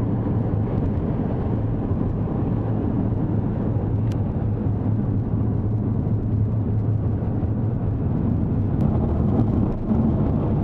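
Car cruising at highway speed, heard from inside the cabin: a steady low rumble of engine and tyre noise.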